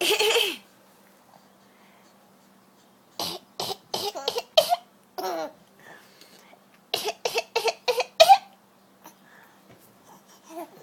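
A person coughing: one cough at the start, then two runs of short, quick coughs about three and seven seconds in.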